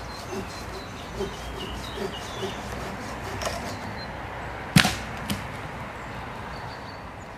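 Steady outdoor background hiss with a few faint short sounds. Nearly five seconds in comes a single sharp crack, and half a second later a lighter click.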